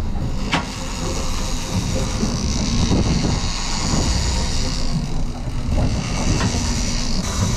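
Steady rumble and hiss of a Stabicraft boat at sea, heard from inside its cabin, with a few short knocks and rattles, one about half a second in.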